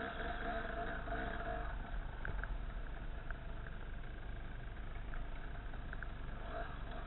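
Off-road motorcycle engine running steadily as the bike rides a forest trail, heard from its onboard camera, with a few faint ticks over the top.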